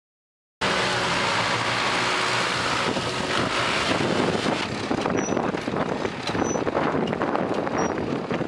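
Ursus 1224 tractor's diesel engine running steadily, cutting in about half a second in after a moment of silence.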